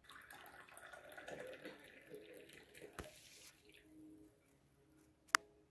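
Tea being poured from a porcelain teapot into a cup: a soft, faint trickle lasting about three and a half seconds. A sharp click comes near the end.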